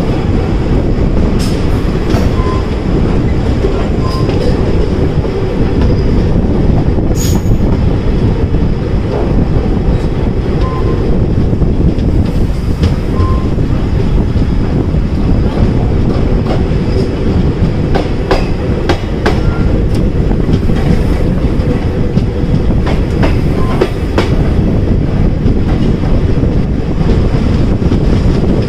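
Passenger train running on the track, heard on board: a loud, steady rumble of wheels on rails, broken by irregular sharp clicks as the wheels pass over rail joints.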